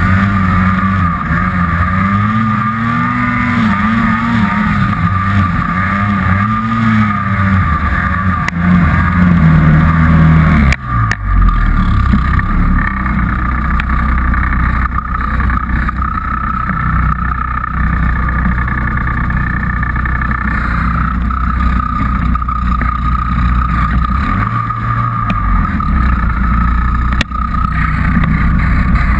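Turbocharged Polaris Dragon two-stroke snowmobile engine running under load, its pitch rising and falling repeatedly for the first ten seconds, then dipping briefly and settling into a steadier, lower drone. A steady high whine runs over it.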